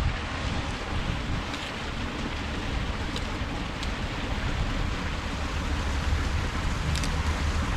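Wind buffeting the microphone over a steady rushing hiss, with a few faint ticks.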